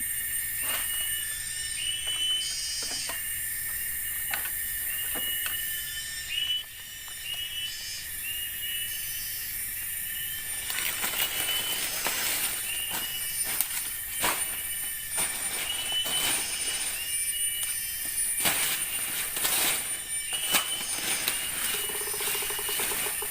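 Forest insects, cicadas and crickets, keep up a steady high buzzing chorus with a chirp repeating about twice a second. Scattered knocks and rustling from clearing work run over it, growing denser and louder from about ten seconds in.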